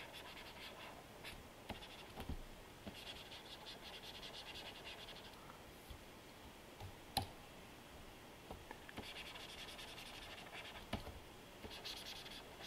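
Faint scratching of a Wacom pen stylus stroking across a Cintiq pen display screen while erasing and painting, in short stretches of rapid strokes, with a few light taps of the pen, the sharpest about seven seconds in.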